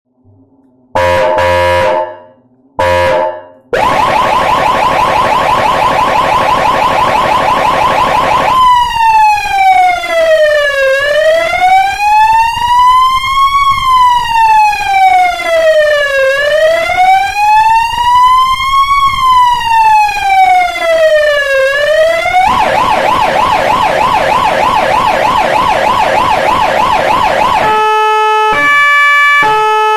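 Federal Signal AS-380 electronic siren running through its tones: two short horn blasts about a second apart, then a rapid warble, then a slow wail rising and falling about every five seconds. The rapid warble returns, and near the end it switches to a two-note hi-lo.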